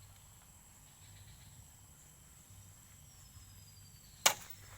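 Insects chirring steadily in a high, even drone, with one sharp crack about four seconds in.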